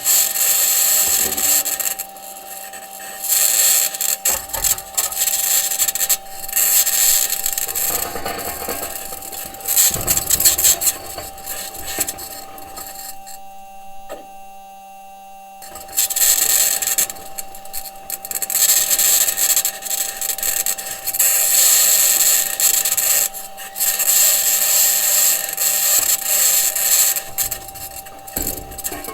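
Perseverance Mars rover driving, heard through its entry, descent and landing microphone: the noise of its wheels and suspension on the surface, with a harsh, high-pitched scratching that comes and goes in long stretches and drops away for a few seconds about halfway through, over a steady tone. The scratching may be electromagnetic interference from one of the rover's electronics boxes or the mobility system interacting with the Martian surface.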